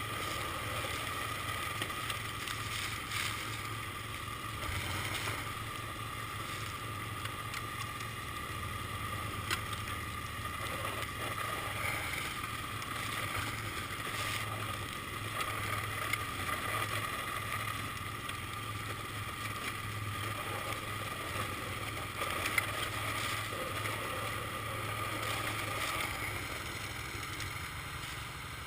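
Bercomac Prestige 54-inch ATV snowblower running steadily, a continuous engine drone with a steady whine over it and a few faint knocks.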